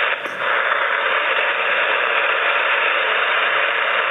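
Steady hiss of band noise on the 80-meter band from a FlexRadio 6600M receiver, held within the radio's audio passband, with the receiver's noise blanker set to its normal mode. There is a brief break in the hiss just after the start.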